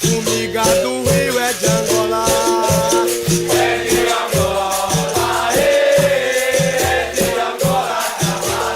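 Capoeira roda music: a steady shaken rattle, as of the caxixi on a berimbau, over an even drum beat, with a group singing a call-and-response song.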